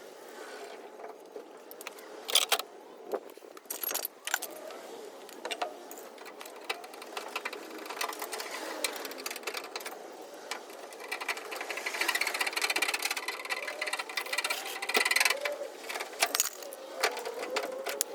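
Scattered clicks, light taps and scraping from hand tools working a dent in a truck's body panel, busiest in the later part.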